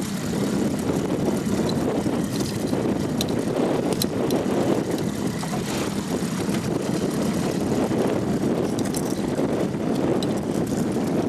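A boat's outboard motor running steadily at low speed, a constant hum under a broad hiss.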